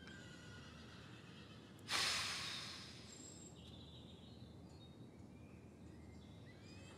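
Quiet room tone broken about two seconds in by one sharp exhale through the nose, a breathy hiss that fades over about a second.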